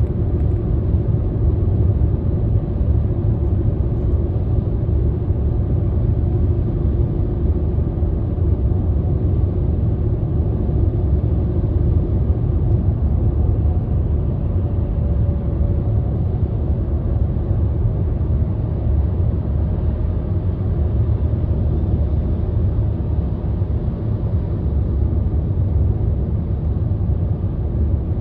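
Car on the move: a steady low rumble of engine and road noise with a faint whine above it that drifts a little in pitch. The whine comes on under acceleration, and its cause is unknown to the owner.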